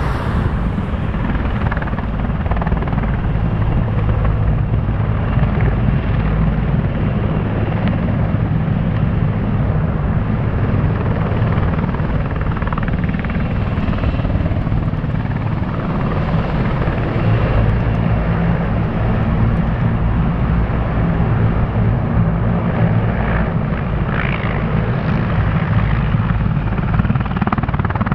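Sikorsky CH-53G heavy transport helicopter hovering low: the deep, rapid beat of its six-blade main rotor over the steady running of its twin turboshaft engines, loud and even.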